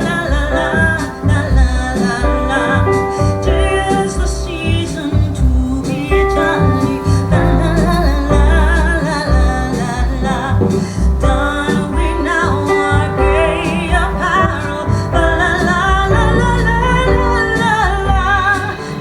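A song with a singing voice over a deep, heavy bass line, played back through Yamaha NX-VS10M surround speakers and a Sony SA-WMSP4 active subwoofer.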